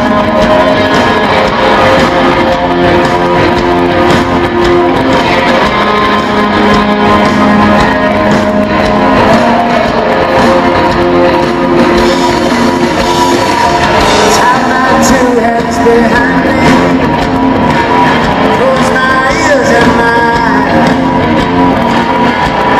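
Southern rock band playing live in a large hall: electric guitars through Marshall amps, drum kit and organ, loud and continuous.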